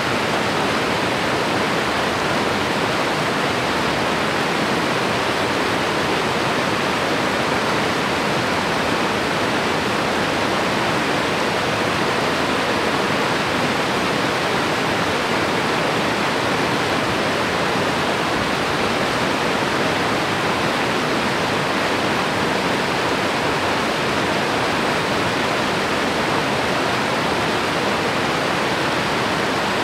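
A fast mountain river rushing over rocks in white-water rapids, a loud, steady roar of flowing water.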